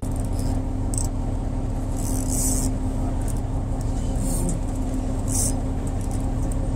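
Fishing boat's engine running steadily, a low hum and rumble at an even level, with a few short hissing sounds over it.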